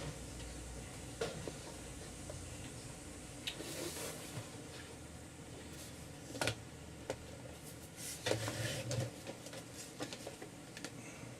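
Scattered light knocks, taps and rustles of board and paper being handled and pressed into place while a box is assembled.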